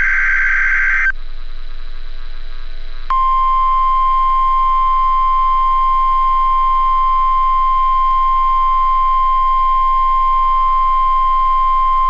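NOAA Weather Radio alert test signals: the last burst of the SAME digital header, a buzzy data burst, ends about a second in. After a two-second pause, the 1050 Hz warning alarm tone starts, one steady high beep held for about nine seconds.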